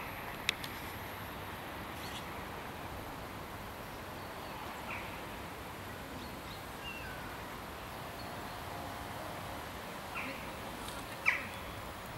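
Open-air ambience: a steady background hiss with scattered short bird chirps, a sharp click about half a second in, and a louder short sharp sound near the end.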